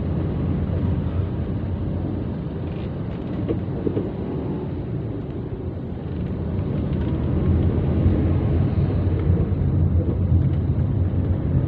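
Car cabin noise while driving: a steady low rumble of the moving car heard from inside, growing somewhat louder about two-thirds of the way through.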